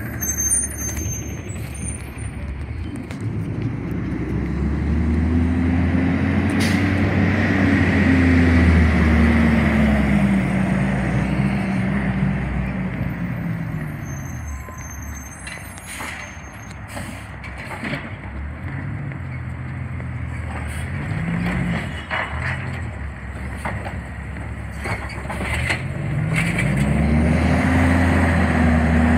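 CNG Autocar Xpeditor garbage truck's engine revving up as it pulls away, easing off, then pulling up again between stops. There are a few short clicks and hisses near the middle.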